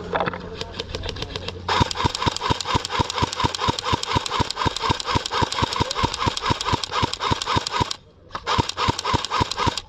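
Airsoft gun firing a long string of rapid repeated shots, about five a second, getting louder after a second and a half, with a brief pause near the end before firing resumes.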